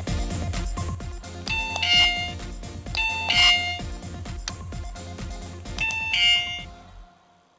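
Miniature toy door chime pressed three times, each press giving an electronic two-note ding-dong that falls in pitch. Electronic music with a steady beat plays underneath and cuts off near the end.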